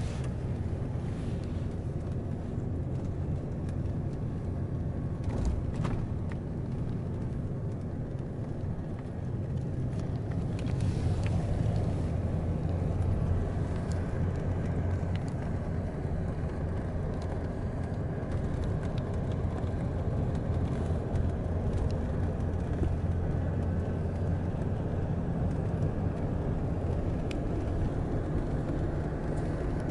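Rolls-Royce Phantom VI V8 limousine driving, heard from inside the cabin: a steady low rumble of engine and road noise that grows a little louder about a third of the way in.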